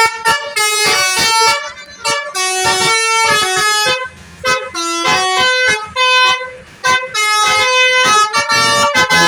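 Bus 'basuri' telolet horn, a multi-tone musical air horn, playing a fast tune of short stepped notes, often several tones at once, in loud phrases with brief breaks between them.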